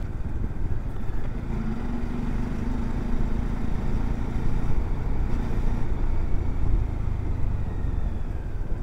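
Motorcycle engine running steadily at low road speed, heard from the rider's seat with a constant low rumble and road and wind noise.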